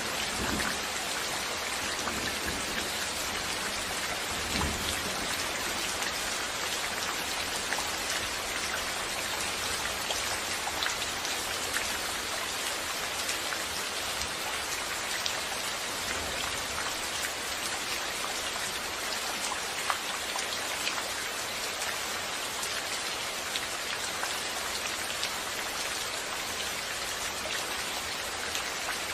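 Steady rain falling on surfaces: an even, dense hiss with scattered individual drop splashes.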